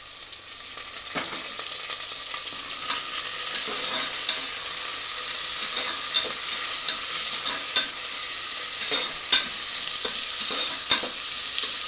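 Onions and curry leaves sizzling in hot oil in a pressure cooker, stirred with a spoon that scrapes and clicks against the pot at irregular moments. The sizzle grows slightly louder as the frying goes on.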